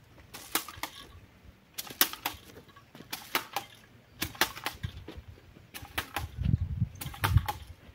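A series of irregular sharp clicks and knocks, several in quick clusters, with duller thuds near the end.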